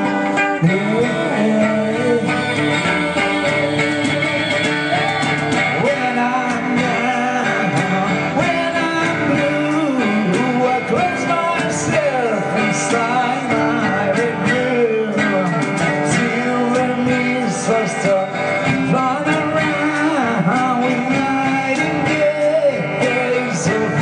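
Acoustic guitar strummed while a man and a woman sing.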